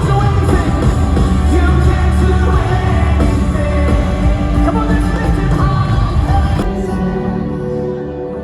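Pop-style music with singing and a full band with drums. About two-thirds of the way through, the drums and band cut out, leaving soft held chords.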